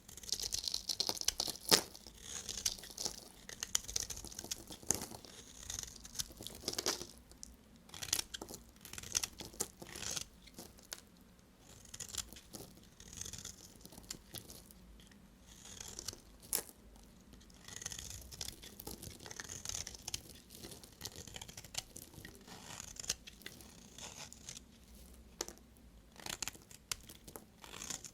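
A knife cutting through dry bar soap: a run of short, crisp scraping strokes with sharp crunches and clicks.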